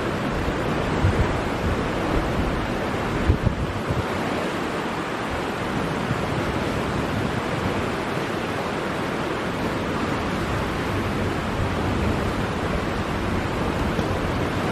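High-running river rushing over rapids: a steady loud wash of whitewater, with a few low bumps of wind on the microphone near the start.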